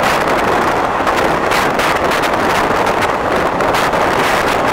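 Passenger train running at speed, heard from the open coach window: steady wheel and track rumble with frequent irregular clacks, under heavy wind rush on the microphone.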